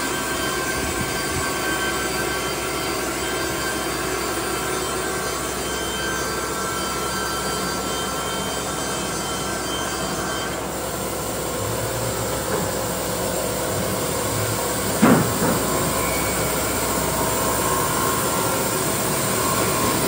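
Baker band sawmill running steadily, its band blade cutting a board off a squared log. The sound changes about halfway through, and one sharp knock comes about three-quarters of the way in.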